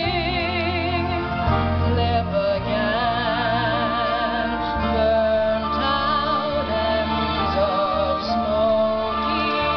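A woman singing a slow ballad into a microphone, amplified through a PA, with wide vibrato on her held notes, over a steady instrumental accompaniment.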